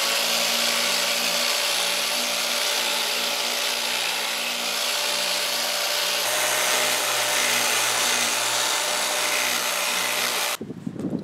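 Craftsman electric sheet sander running steadily with its pad sanding the bare wood of a walking stick. It cuts off suddenly near the end.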